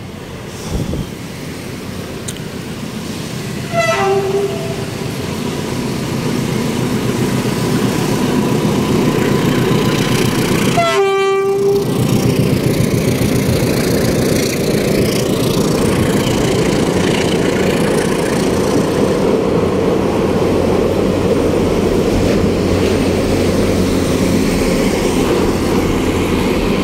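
Philippine National Railways commuter train sounding its horn, a short blast about four seconds in and a longer one around eleven seconds, while its running noise grows louder and then holds steady as it passes close by.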